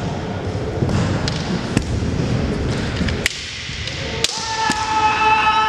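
Kendo sparring: bamboo shinai clacking against each other in several sharp cracks, with bare feet thudding and stamping on a wooden floor. From about four seconds in, a long held shout (kiai) rings out over the strikes.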